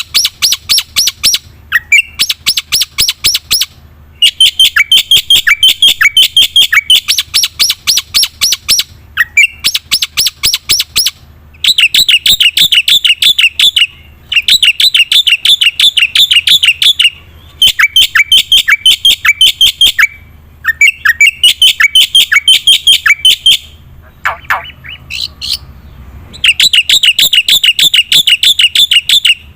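Black-winged myna (jalak putih) singing in loud runs of rapid, evenly repeated chattering notes, each run one to three seconds long with short breaks between. Near the end comes a lower, harsher call.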